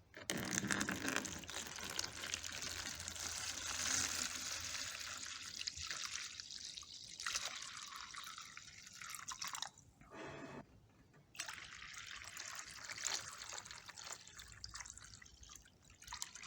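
Vinegar being poured over rusty hand tools in a container, a steady splashing pour for about the first seven seconds, then quieter trickling and dripping to soak the rust off.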